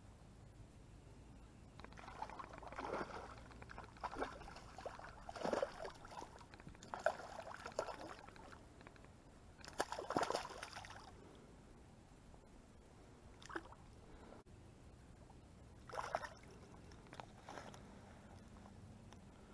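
Hooked crappie splashing at the water's surface as it is brought in: a run of irregular splashes over about nine seconds, then two brief splashes later on.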